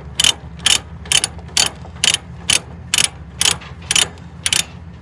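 Ratchet chain binder being cranked to tighten a load-securement chain: the pawl clicks evenly, about twice a second.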